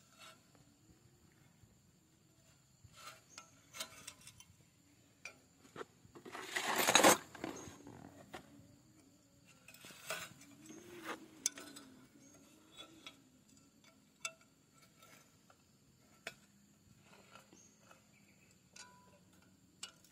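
Spanner clinking and clicking on the bolts of a mini tiller as they are checked and tightened: scattered light metal clicks, with one louder rushing noise lasting under a second about seven seconds in.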